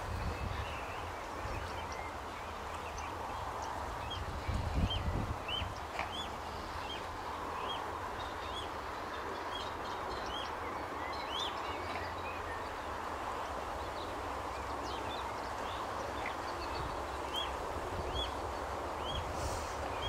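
Mute swan cygnets peeping: a run of short, high peeps at about two a second, which stops for a few seconds and starts again near the end.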